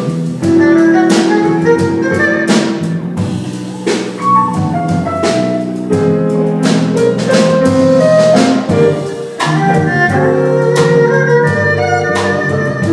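Instrumental jazz-style music: held melody notes and chords over a bass line, with frequent drum hits.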